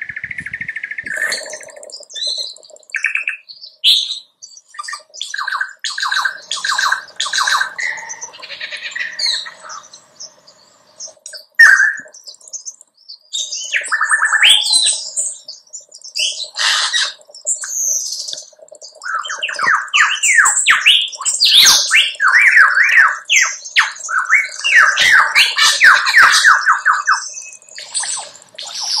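Lyrebird singing a varied, constantly changing medley of whistles, sharp squawks and fast chattering trills, with a lull in the middle and a long run of rapid repeated notes in the second half.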